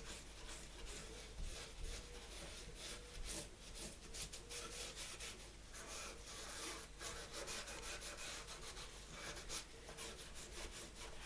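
Cloth wetted with white spirit rubbing over the dirty surface of old mahogany-coloured Bakelite switch covers, faint, in many quick back-and-forth strokes.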